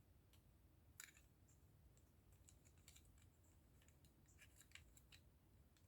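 Faint, scattered clicks and taps of small plastic model-kit parts being handled and fitted together, with a sharper click about a second in.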